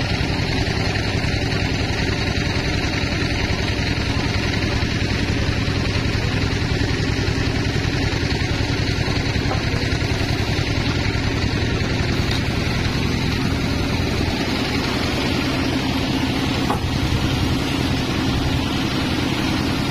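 Large vertical band sawmill running steadily, its blade sawing through a thick wooden slab as the slab is pushed along the carriage.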